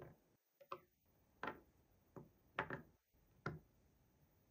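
Soft, irregular clicks and taps of small plastic toy pieces being set down and fitted together, about six in a few seconds.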